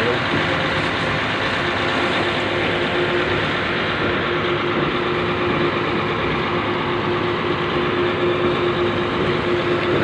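Heavy diesel engine running steadily at idle, an unbroken hum with no change in speed.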